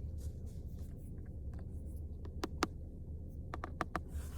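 A few sharp clicks and taps from a stylus and iPad being handled, two about two and a half seconds in and a quick run of three near the end, over a steady low hum.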